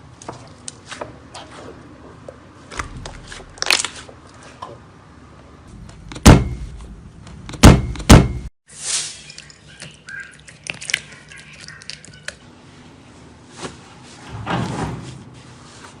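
Slime being handled by hand: small sticky clicks and pops, with two heavy thuds a little past the middle and softer squishy rustling afterwards.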